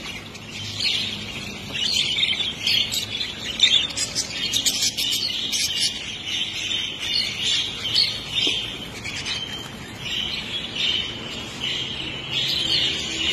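A crowd of hagoromo budgerigars chattering and chirping all at once, a continuous dense twitter of many short overlapping calls.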